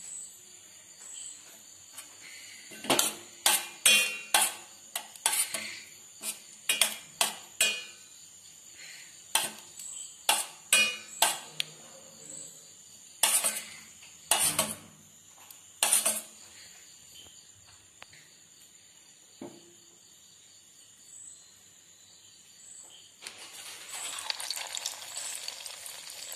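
A metal spoon clinking repeatedly against a steel bowl while cauliflower florets are turned in beaten egg, some strikes ringing. About 23 seconds in, an egg-coated floret goes into hot sunflower oil and sizzles steadily as it starts to deep-fry.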